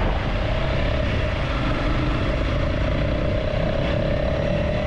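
Single-cylinder Honda CRF300 motorcycle engine running steadily while riding along, with a steady drone and road noise.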